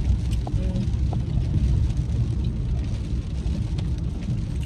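Steady low rumble inside a car's cabin, the car's engine running, with a few faint clicks of chewing.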